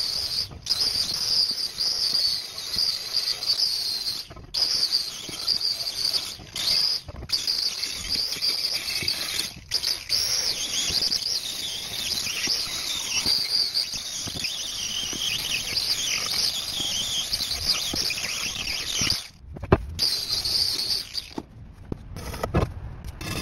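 Angle grinder running against a rusty cast-iron printing-press part, a steady high-pitched whine with a gritty hiss as it strips the rust, broken by a few brief gaps and stopping near the end.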